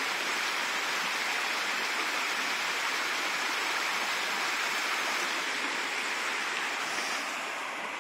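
Shallow creek running over a rocky bed: a steady rushing hiss of water, dropping a little in level near the end.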